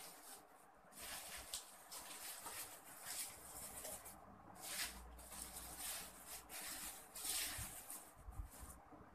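Bubble wrap and plastic packaging crinkling and rustling in the hands as a recurve bow part is unwrapped, in irregular bursts.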